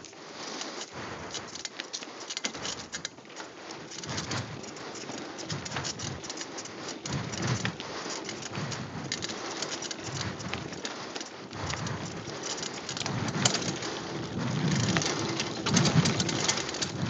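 Mountain bike riding fast downhill on a dirt singletrack: a dense crackle of tyres on dirt and stones with the bike rattling, and irregular low wind buffeting on the microphone. It grows louder over the last few seconds.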